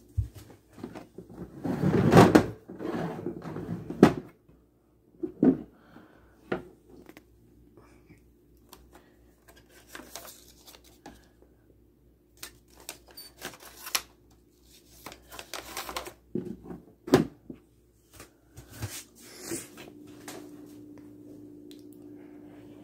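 Scattered knocks, clicks and rustles of packets and plastic bins being handled on wire pantry shelving, with a louder rustling stretch about two seconds in and a sharp knock later on. A faint steady hum comes in near the end.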